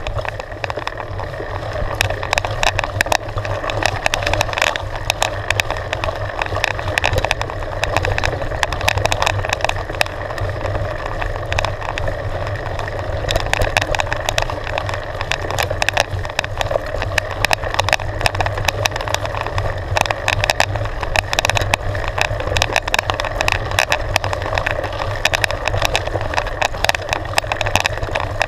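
Mountain bike rolling down a gravel trail, heard from a camera mounted on the bike: continuous tyre crunch on loose stones with dense, irregular rattles and knocks over the bumps.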